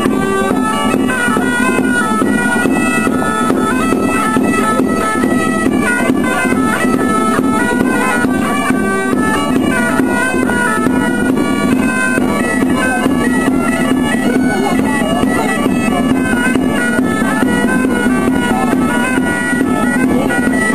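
Bagpipe music: a steady drone beneath a quick melody of short stepping notes.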